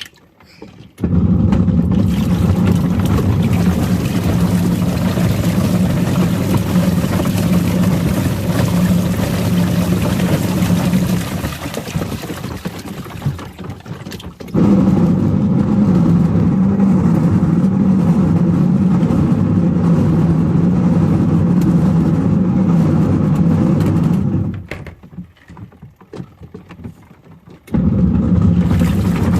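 Washing machine motor running in its wash cycle with Lego toys churning in the water: a steady motor hum that runs for about ten seconds, dies away, restarts with a jolt about halfway through, stops again near the end and starts once more just before the close.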